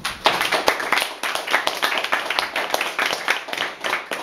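Small audience clapping: dense, quick handclaps that start abruptly as a poem ends.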